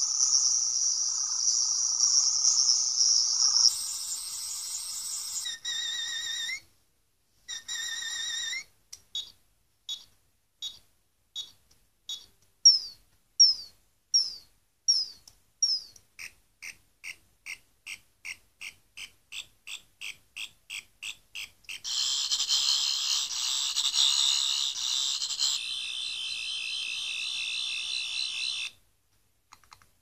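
Wand Company 12th Doctor sonic screwdriver universal remote in FX mode, playing one electronic sonic sound effect after another. First a high warbling whine, then short spaced chirps, then a quick run of falling chirps and rising beeps. A louder buzzing warble runs from about three quarters of the way in and stops shortly before the end.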